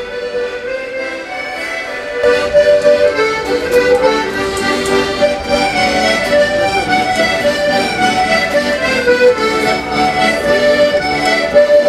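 A piano accordion and a button accordion playing a tune together, the music growing louder and fuller about two seconds in.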